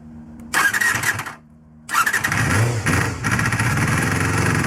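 Honda Jade (MC23) 250 cc inline-four motorcycle engine being started: a loud burst of cranking about half a second in, a short pause, then it catches about two seconds in and keeps running, revving briefly.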